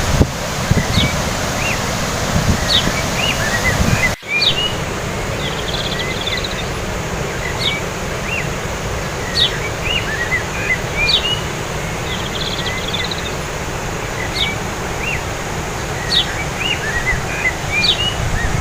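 Several birds chirping repeatedly, with short rising and falling notes and a brief buzzy trill every few seconds, over a steady rushing background noise. Low gusts rumble in the first few seconds, and the sound cuts out for an instant about four seconds in.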